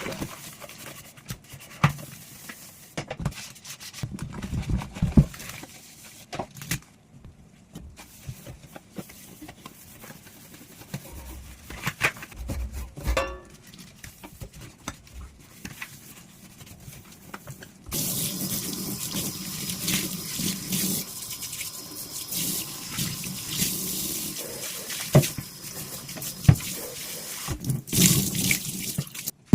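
Dishes being washed by hand at a sink: dishes and utensils clinking and knocking against each other, with a short ringing note from one of them. About two-thirds of the way through, the tap comes on and water runs steadily over the dishes amid more clinks, then cuts off just before the end.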